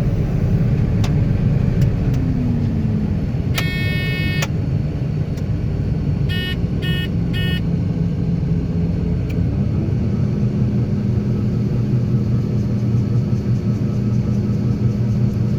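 A vehicle engine running steadily with a continuous low drone. About four seconds in there is one long electronic beep, then three short beeps around seven seconds.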